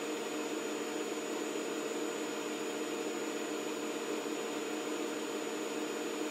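Steady mechanical hum with hiss: an even whirring drone with a faint high whine that holds the same pitch and level throughout.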